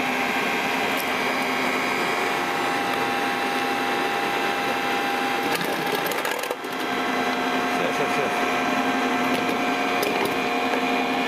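Electric motor-generator set running, a steady motor hum and whine with several fixed tones, briefly dropping about six and a half seconds in.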